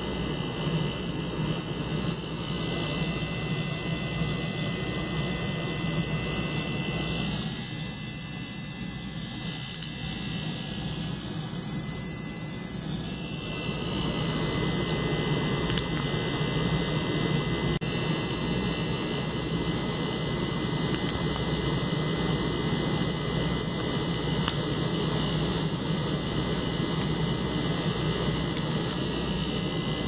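Small liquid-circulation pump and benchtop ultrasonic cleaner running together: a steady mechanical hiss over a pulsing low hum. The noise thins out for several seconds about a third of the way in, then comes back at full strength.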